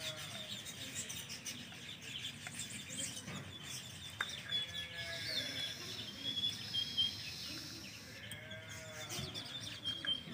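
Several birds chirping and calling, with many short high chirps and a few lower rising-and-falling calls.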